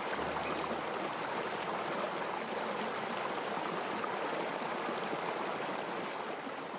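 River water running in a steady, even rush.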